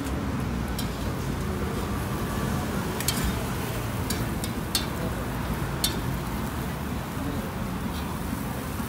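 Busy street-market ambience: indistinct voices over a steady low rumble, with a few sharp clicks about three, five and six seconds in.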